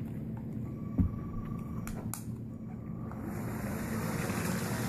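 A single thump about a second in, then from about three seconds in the whirring of an approaching motorized Lego train running on plastic track, growing louder.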